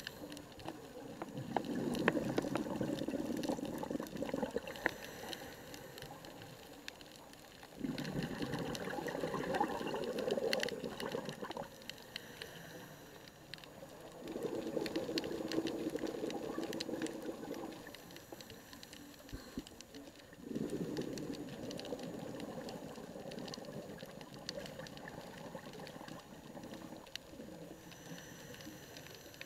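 Scuba regulator breathing underwater: a bubbling exhalation about every six seconds, each lasting three to four seconds, with quieter inhalations between and faint clicks throughout.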